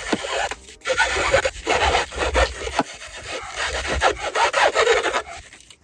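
Plastic PTO-shaft safety guard being worked off its metal driveshaft tube: a run of uneven rubbing and scraping strokes of plastic against metal.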